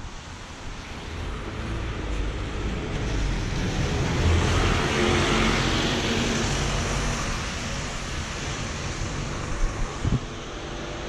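A single-decker bus passes close by on a wet road. Its engine and tyre hiss swell to a peak about halfway through and then fade, over a steady low traffic rumble. There are two sharp knocks near the end.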